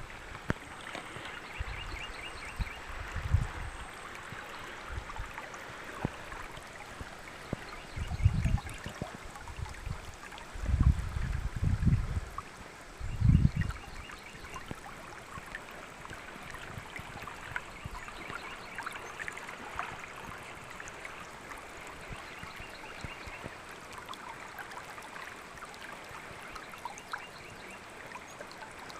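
Norfork River water flowing and trickling steadily, with a few short low rumbles between about eight and fourteen seconds in.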